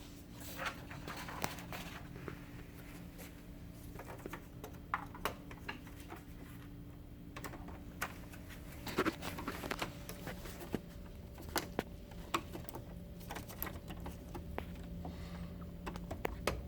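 Scattered light plastic clicks and taps from the laser printer's access doors and internal parts being handled, over a faint steady hum.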